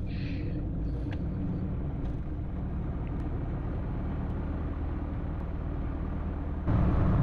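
Engine of a Rutan-designed canard light aircraft heard from inside the cockpit while it taxis: a steady low drone. The drone gets clearly louder near the end.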